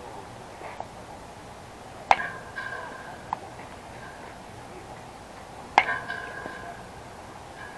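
Two sharp, ringing metallic pings about three and a half seconds apart, typical of an aluminum baseball bat striking a ball.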